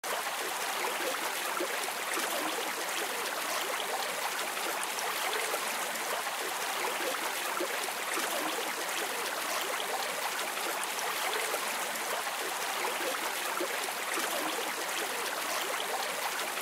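Running water trickling steadily, an even splashing hiss.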